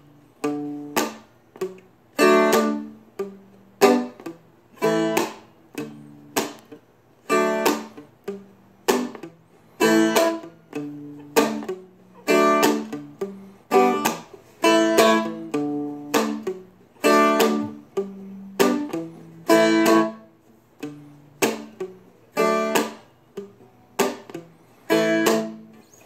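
Seagull Merlin strummed with a pick in a steady repeating pattern of bass note, then strums. Every downstroke is a palm-muted percussive hit, so each chord is cut short.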